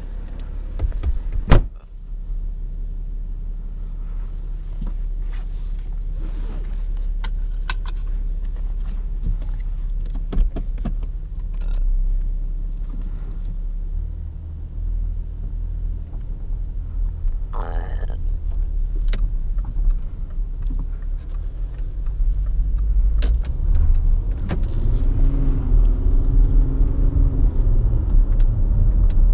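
Audi A6 driver's door pulled shut with a loud thud about a second and a half in, then the 3.0 TDI's V6 turbodiesel running, heard from inside the cabin as a steady low rumble. Near the end the engine note rises and falls and grows louder as the car drives off through the gears.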